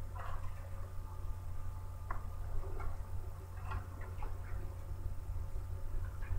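Bible pages being turned: scattered soft rustles and small ticks of paper, over a low steady hum.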